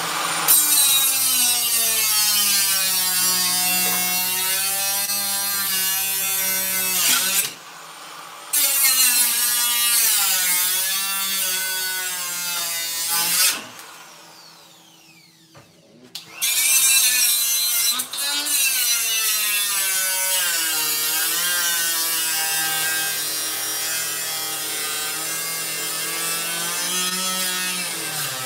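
Handheld power tool with a cutting disc cutting into the microwave's metal casing, its whine wavering in pitch as the disc bites. It stops about seven seconds in and restarts a second later. Near the middle it is switched off and winds down with a falling whine for about two seconds before starting again.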